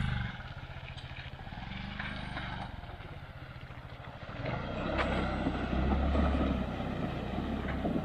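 Motorcycle engine running under load as the bike rides through a shallow river. It grows louder about four and a half seconds in, with a rushing, splashing sound over the engine.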